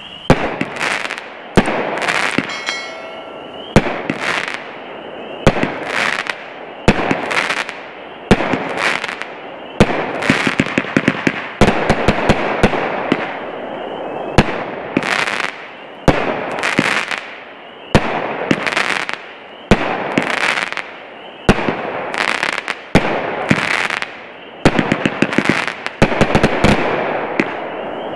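Black Cat 'Gunfighters from Hell' 49-shot 500-gram consumer firework cake firing a steady run of sharp shots, each followed by crackling. Near the end the shots come in fast rapid-fire strings.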